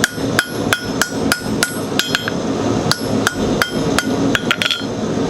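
Blacksmith's hammer striking steel over the anvil, about three ringing blows a second with a short pause around the middle. This is the chisel work that grooves a hot bar for a pineapple twist.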